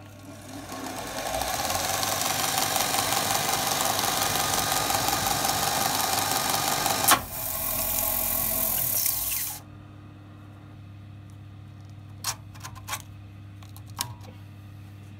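Combination bench grinder and belt sander switched on with a click and spinning up, then a metal motor casing ground against the sanding belt: a loud, steady rasping hiss with a sharp knock about seven seconds in. The grinding stops about nine and a half seconds in, leaving a low steady hum and a few light knocks.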